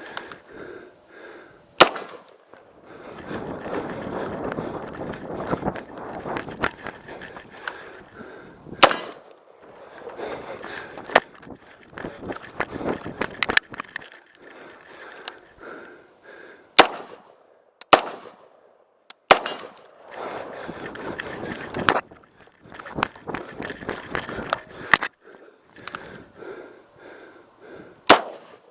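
Short-barrelled AR-15 rifle fired in single shots, about ten in all, spaced irregularly from about one to seven seconds apart. Between the shots there is scuffling movement noise as the shooter moves through the ladder drill.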